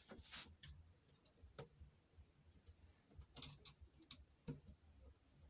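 Near silence with faint, scattered clicks and light knocks of small metal parts and tools being handled, about half a dozen in all, the clearest a little past the middle.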